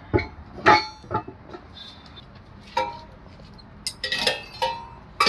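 Metal clinking and clanging: a handful of sharp, irregularly spaced strikes of metal on metal, each with a short ringing tone, the busiest cluster near the end.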